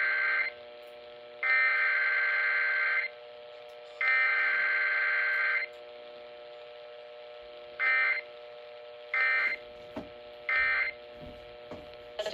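Emergency Alert System SAME data bursts: three long, shrill warbling digital header bursts about a second apart, then three short end-of-message bursts near the end. A faint steady hum of tones sits underneath.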